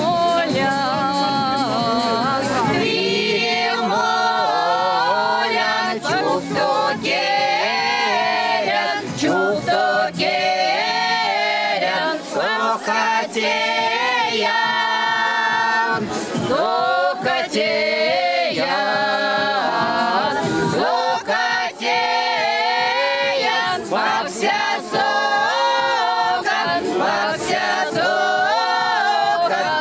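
A Mordovian folk vocal ensemble of several women and a man singing a folk song unaccompanied, several voices together throughout.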